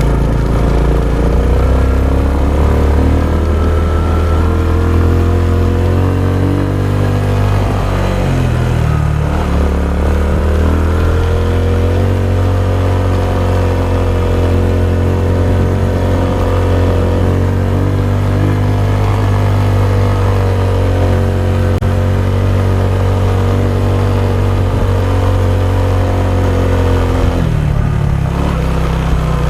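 Honda XRM 125 single-cylinder four-stroke motorcycle engine running on the move. Its pitch dips and climbs again about eight seconds in, holds steady, then drops near the end.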